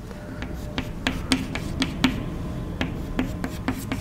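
Chalk on a chalkboard drawing short dashed lines: a string of quick, uneven taps and brief scrapes, about three a second.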